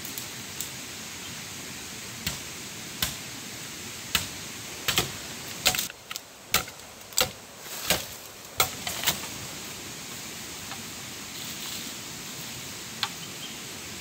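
A series of sharp knocks or taps, about a dozen at irregular intervals, thickest in the middle with a last one near the end, over a steady rushing hiss.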